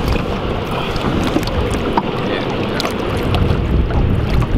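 Wind buffeting the microphone over water sloshing and splashing against a boat's side as a muskie is held in the water and released.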